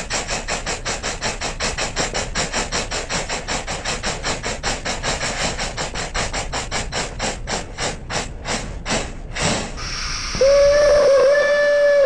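Model steam locomotive chuffing in a steady rhythm of about five chuffs a second, slowing and fading out, then a steady steam whistle held from about ten seconds in.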